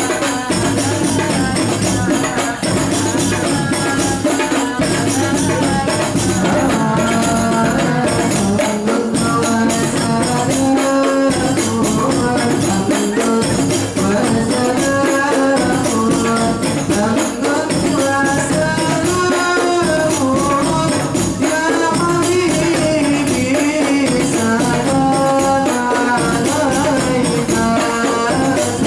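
Hadroh ensemble of rebana frame drums and a darbuka hand-drummed in a steady, fast rhythm, with a voice singing a melody over it.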